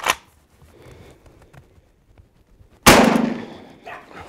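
A pump-action shotgun: a short metallic click at the very start as the action is worked, then, about three seconds in, a single loud shotgun shot that rings and dies away over about a second.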